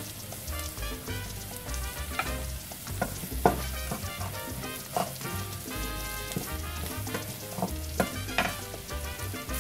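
Chopped red onion and garlic sizzling in olive oil in a nonstick frying pan, with a wooden spatula scraping and stirring them now and then. Background music with a steady beat runs underneath.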